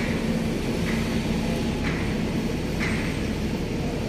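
Excavator diesel engine running steadily at a constant speed, with faint short high beeps about once a second.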